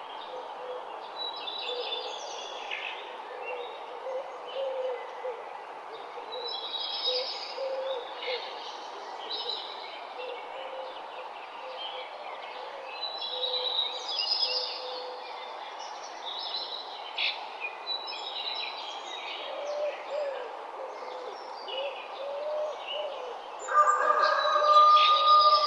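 Morning dawn chorus: many songbirds chirping and trilling over a steady outdoor hiss, with low cooing notes repeated underneath. Near the end a louder held tone rises over the chorus.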